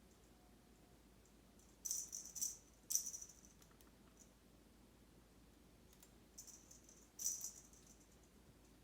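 Kittens at play making short bursts of high, scratchy rattling, four times, with quiet between.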